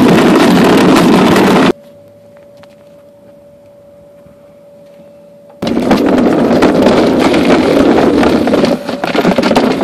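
Loud, rough rushing noise from a toy Barbie Jeep rolling downhill with the camera riding in its seat: plastic wheels rattling over the ground and wind on the microphone. About two seconds in it cuts off abruptly to a few seconds of quiet with a faint steady hum, then the loud rolling noise returns.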